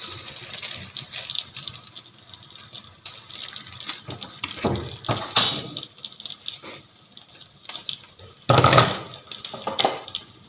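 Kitchen handling sounds while topping a pancake with cheese: scattered clicks and rustles, with a louder noisy rush of about a second near the end.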